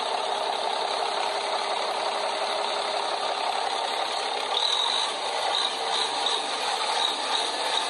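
Steady running machinery noise, an even hum and hiss, with faint high-pitched pulses coming in about halfway through.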